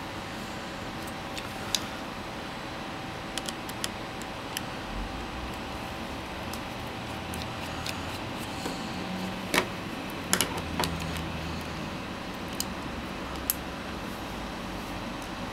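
Scattered small clicks and taps of a small screwdriver and tiny screws being worked out of a T-Mobile G1 phone's inner frame, with two louder clicks about ten seconds in, over a steady background hum.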